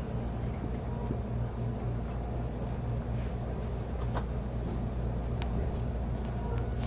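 Steady low hum inside a JR Central 373 series electric express train car as it starts away from a station, with a few light clicks.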